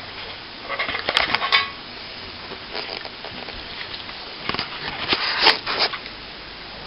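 Two short bouts of scraping and clinking from metal hand tools being handled, about a second in and again around five seconds in.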